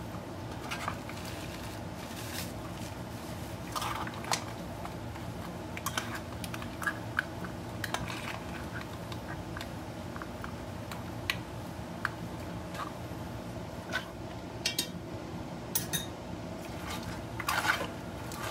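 A silicone slotted spoon stirring shrimp and mussels in an enamelled pot, with irregular scrapes and light knocks against the pot, over a steady low hum.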